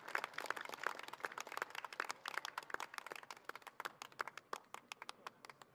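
Audience clapping: many separate, irregular hand claps that thin out and die away near the end.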